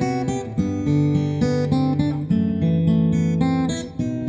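Background music: an acoustic guitar tune, plucked and strummed, its notes changing several times a second.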